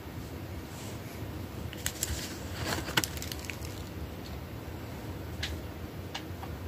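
Paper scratch-off lottery tickets being handled and set down: a cluster of light clicks and taps a couple of seconds in, and a couple more near the end, over a steady low hum.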